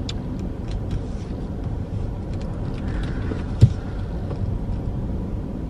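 Car cabin road noise while driving, a steady low rumble, with a single sharp knock about three and a half seconds in.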